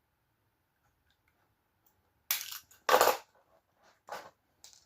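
Stanley knife trimming the insulation off a 10mm cable: after a quiet start, four short, sharp cutting and scraping sounds, the loudest about three seconds in.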